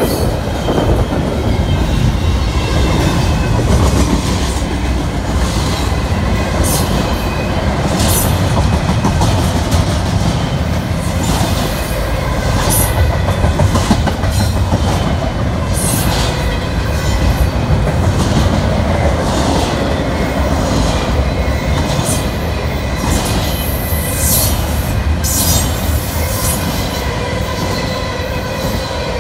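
A train passing close by on the rails: a steady heavy rumble with repeated sharp clicks every second or two from the wheels, and a faint thin squeal from the wheels running underneath.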